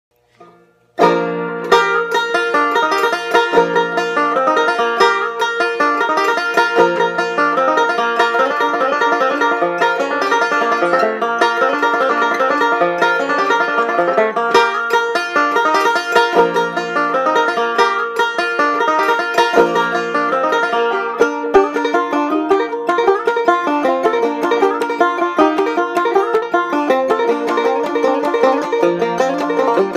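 Instrumental music on a plucked string instrument: a fast, continuous stream of picked notes over a steady held note, starting about a second in.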